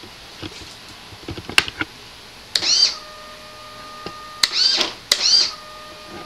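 Retract servo in an RC Boeing 707 model airliner working the mechanical main landing gear three times. Each move is a short motor whine that rises and falls in pitch, with a few clicks of the mechanism before the first. After the first and last moves the servo keeps up a steady high buzz as it strains against gear that sticks and won't retract all the way.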